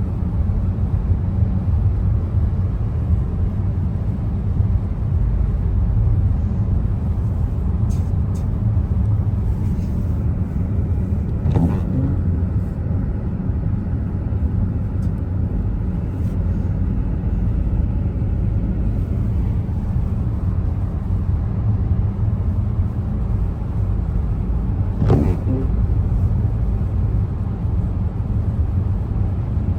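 Steady low rumble of a car driving on a snowy highway, heard from inside the cabin: tyre and engine noise. Two short knocks stand out, one about a third of the way in and one near the end.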